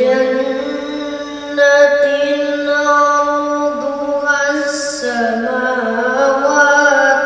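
A boy's voice reciting the Qur'an in melodic tilawah chant, holding long sustained notes with ornamented turns, stepping up in pitch about one and a half seconds in.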